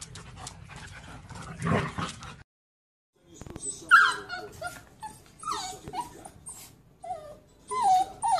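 A dog whimpering and yipping: a string of short, high cries, most of them falling in pitch. They begin about three and a half seconds in, after a second of silence.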